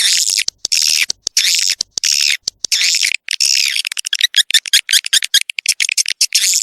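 Swiftlet lure recording: a dense, high-pitched chattering twitter of swiftlet calls broken by short gaps, the kind played to draw young swiftlets into a new nesting house.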